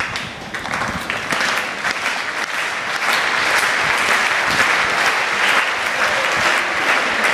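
Large stadium crowd applauding, a dense patter of many hands clapping that swells about three seconds in and keeps going.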